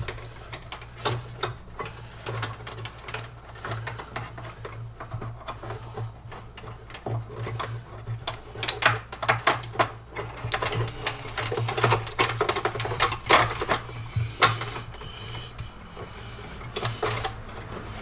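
Irregular clicks, taps and rustling from trailer wiring being handled and wrapped, over a steady low hum. The clicks come thickest in the middle of the stretch.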